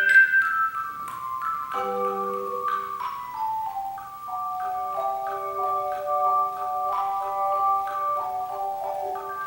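Tone chime ensemble playing: a loud chord rings out at the start and fades, then single chime notes ring on one after another in a melody that steps downward, over held lower notes.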